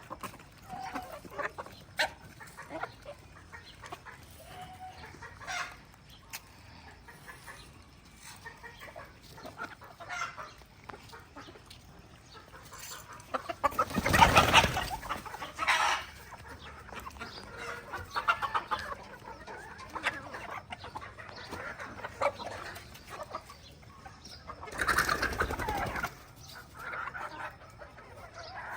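A flock of chickens clucking and calling in short, scattered calls. Two louder, noisier stretches of about a second each break in, one midway and one near the end.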